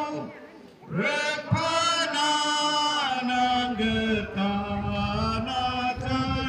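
A group of voices singing slowly with long held notes. There is a brief pause about half a second in, then the next phrase begins.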